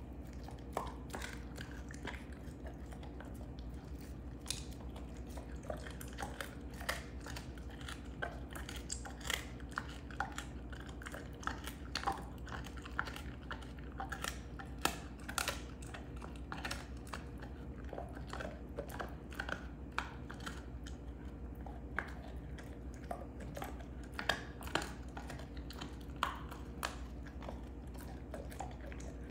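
Belgian Malinois chewing and crunching a beef rib bone: irregular sharp cracks and crunches, several a second at times, with pauses between.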